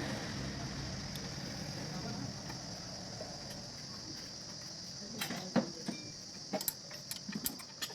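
Several light metallic clicks and knocks in the second half, from steel gearbox parts being handled as the low-high shift rod and fork are fitted into a tractor gearbox. Under them runs a steady high insect chirring.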